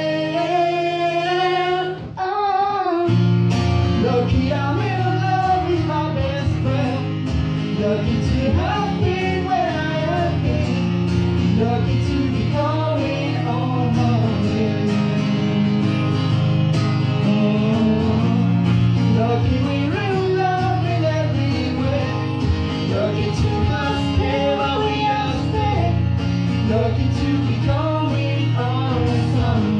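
A live song played by a duo: a guitar with a singing voice over it, with a short break in the playing about two seconds in.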